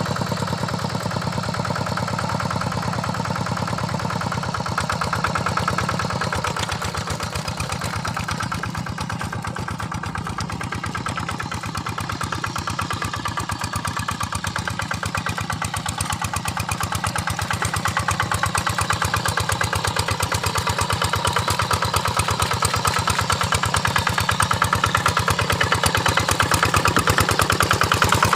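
Quick Impala two-wheel hand tractor's single-cylinder diesel engine running steadily at working speed, its rapid firing beats even throughout. It grows a little quieter in the middle, then louder toward the end.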